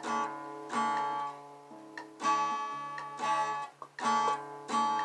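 Acoustic guitar strummed in chords between sung lines, each chord struck and left to ring, with a short pause near the end.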